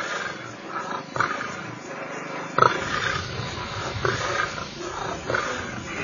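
Lions growling and snarling, a series of separate harsh calls about one every second or so.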